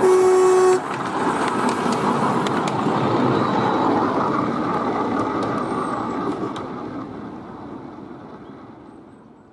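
Miniature-railway battery-electric locomotive (a Planet 4-wheeler) pulling one carriage: its horn gives a steady toot that cuts off under a second in, then its wheels rumble and click over the rail joints as it passes and fades away.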